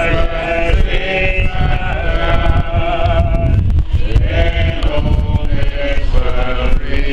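A group of people singing together, slow wavering notes held for about a second each, with a low rumble underneath.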